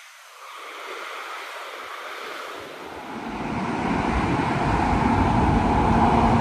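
Steady hiss of highway traffic, then from about halfway a low-flying jet airliner on landing approach comes in, its engine rumble and whine growing loud towards the end.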